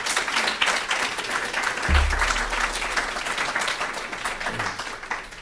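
An audience applauding at the end of a lecture: a dense stretch of many hands clapping that thins out near the end. A low thump sounds about two seconds in.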